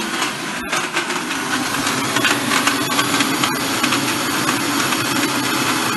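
Electric mixer grinder running at full speed, its blades crushing ice cubes, chocolate pieces and sugar in the jar. A loud, steady whirring grind with two split-second breaks.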